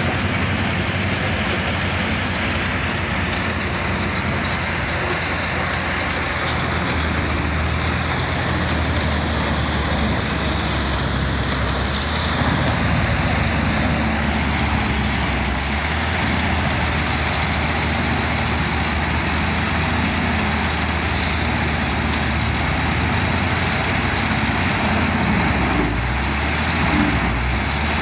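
Eschlböck Biber 84 wood chipper, with its tractor, running steadily under load as it chips wood and blows the chips out through its spout: a loud, even rush of chipping and blowing over a low engine hum, with a thin high whine.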